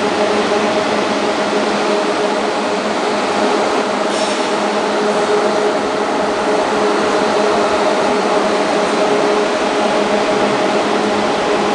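Three-head flat labeling machine with a vacuum suction device running: a steady, even machine noise with a few held tones from its suction blower and conveyor drive.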